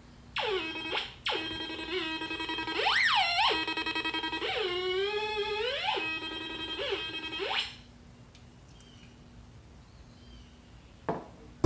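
A warbling electronic tone with many overtones, sliding up and down in pitch and wavering in the middle, for about seven seconds before it stops.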